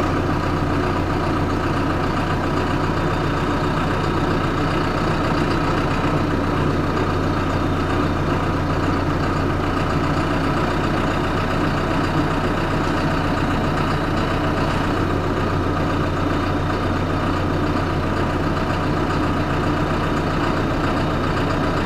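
John Deere tractor engine idling steadily, holding an even, unchanging note while it waits to nudge a chipper's feed wheel yoke into place.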